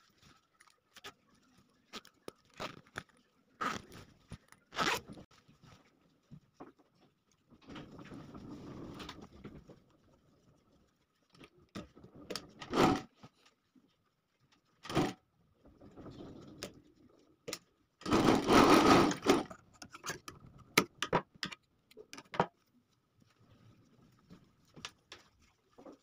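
Industrial sewing machine stitching a jacket zipper in short runs, the loudest and longest run about two-thirds of the way through. Between the runs come rustling and clicks as the fabric and zipper tape are handled, over a faint steady hum.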